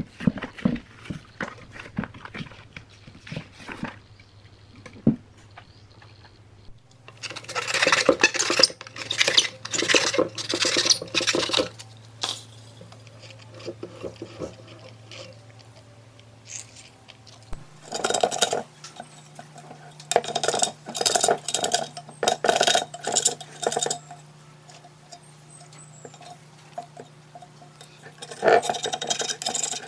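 Bursts of scraping and clattering from hand work on parts, with scattered clicks early on and three longer spells of rapid scraping strokes. A faint steady low hum runs underneath and steps up in pitch a little past halfway.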